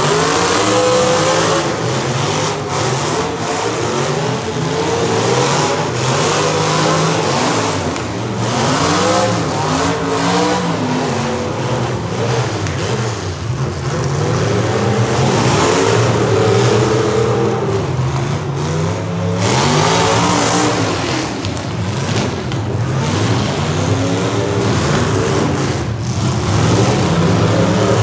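Several demolition derby cars' engines revving up and down at once, overlapping.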